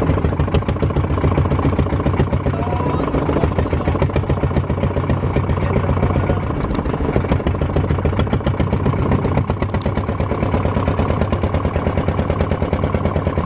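Fishing boat's engine running steadily at an even, fast pulse while the boat is under way.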